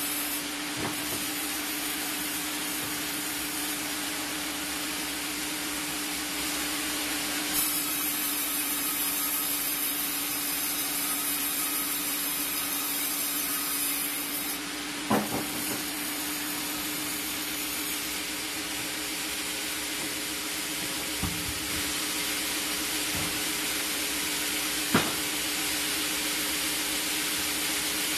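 Vertical log band saw running with a steady hum while its blade cuts wood with a steady hiss, the hiss brightening for a stretch in the middle. A few sharp knocks stand out, the loudest about halfway through and near the end.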